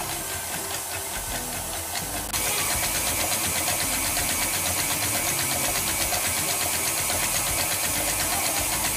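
KitchenAid stand mixer running steadily, its wire whisk beating a bowl of mashed potatoes; the motor gets louder and brighter about two seconds in.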